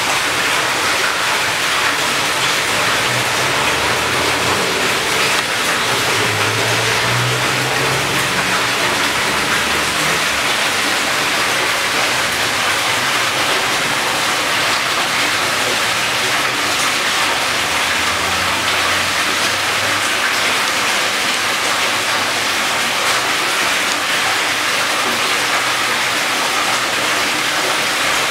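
Steady bubbling and splashing of aerated water in fish tanks, an even rushing noise with no let-up.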